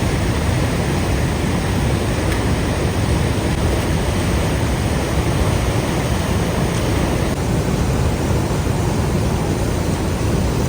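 Waterfall in full spring snowmelt flow, a loud, steady rushing roar with a deep low rumble.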